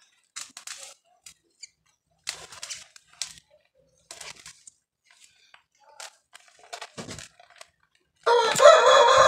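Scattered crunching and scraping of moist garden soil as a seedling is dug out by hand with its root ball. About eight seconds in, a rooster starts crowing loudly.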